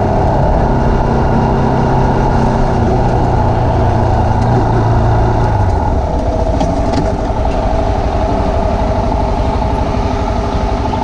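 GPX Legend Gentleman 200 motorcycle's single-cylinder engine running while riding. Its steady low engine note fades about six seconds in and the sound gets a little quieter.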